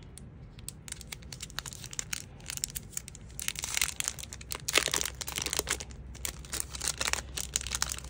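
Clear plastic packet crinkling and crackling in the fingers as it is pulled and picked open, in irregular bursts that grow busier about halfway through.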